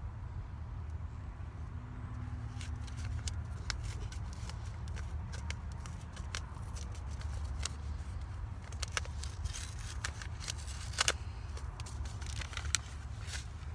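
Scattered small scratches, rustles and sharp clicks of hands working loose garden soil while sowing carrot seeds, the loudest crack about eleven seconds in, over a steady low rumble.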